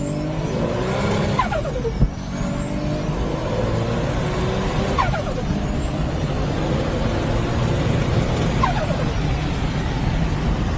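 Turbocharged car engine under boost, its turbo whistle rising in pitch. The throttle is shut three times, about 2, 5 and 9 seconds in, each time with a falling rush of turbo flutter (compressor surge), and a sharp pop comes at the first lift.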